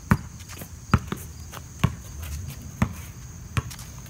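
Sharp thuds on concrete about once a second, five in all, over a steady high insect trill.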